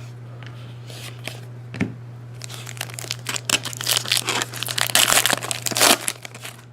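A foil trading-card pack wrapper being torn open and crinkled by hand, a dense crackling that swells about two and a half seconds in and stops near the end, over a steady low hum.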